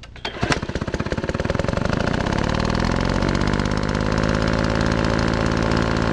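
An engine firing in rapid pulses that speed up and rise in pitch over the first couple of seconds as it revs, then runs steadily at high speed.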